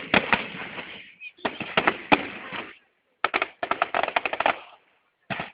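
Fireworks display: volleys of sharp bangs and crackles in three dense clusters of rapid reports, with a short last burst near the end.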